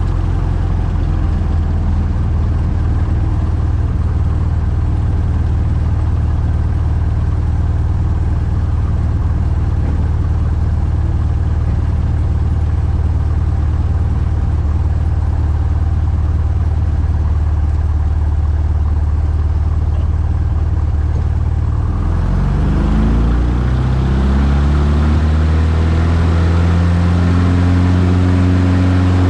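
Van's RV-8's single piston engine and propeller, heard from inside the cockpit, running at a steady low setting on the runway. About 22 seconds in the throttle is opened and the engine note climbs and grows louder as it goes to takeoff power for the takeoff roll.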